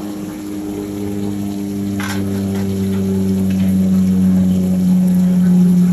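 A steady low machine hum that grows slightly louder, with a short click about two seconds in.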